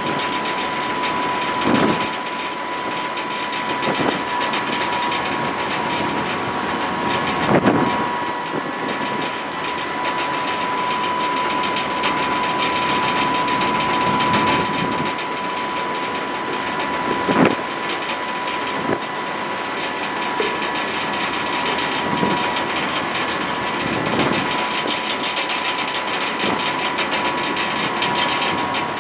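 Passenger ferry under way at sea: the ship's engines run steadily with a thin, steady whine, over the rushing hiss of the churning wake. A few dull thumps come through, about two, eight and seventeen seconds in.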